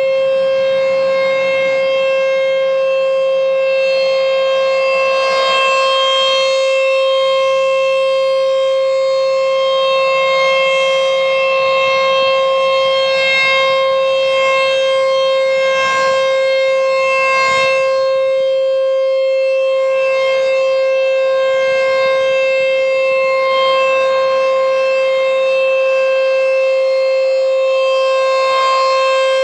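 American Signal T-128 single-tone rotating outdoor warning siren sounding during a routine test, holding one steady pitch at full speed. Its upper overtones swell and fade every few seconds as the horn turns.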